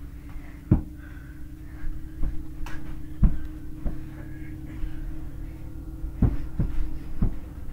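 Irregular dull thumps and knocks, about eight in all, from players' feet and bodies during indoor one-on-one mini-hoop basketball, over a steady low hum.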